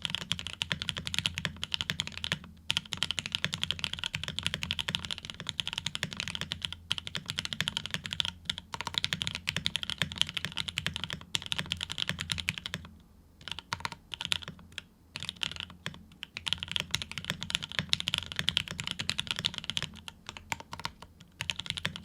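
Fast, continuous typing on a custom full-size mechanical keyboard: a Rekt1800 with lubed Pinoko switches, an FR4 plate, GMK Dots keycaps and O-ring mounting. The typing pauses briefly about 13 and 15 seconds in.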